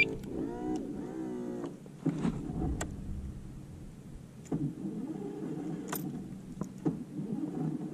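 Boat's electric starter cranking the outboard slowly with a wavering whine for about a second and a half, then several separate clicks. The crank sounds a little weak, a sign of low power reaching the starter, which the crew suspect is a loose connection.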